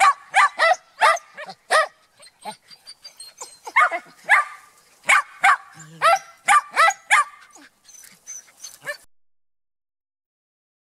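Shetland sheepdog barking in quick, high-pitched yaps, about two to three a second, in two runs with the second the longer. The barks trail off and stop about nine seconds in.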